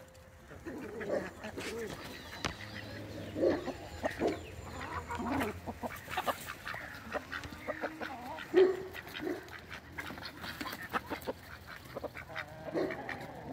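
Ducks quacking and honking in short calls scattered through, with other poultry calling among them.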